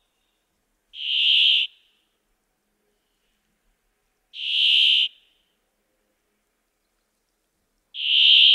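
Brambling (Fringilla montifringilla) giving its drawn-out, wheezy song note three times, each under a second long and repeated about every three and a half seconds.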